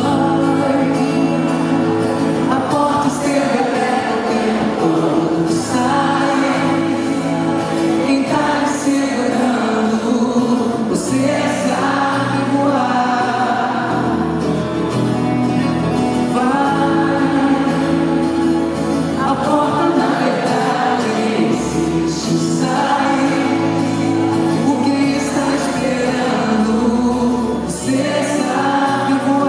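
Live music: a singer's voice over band accompaniment with sustained bass notes, continuing without a break.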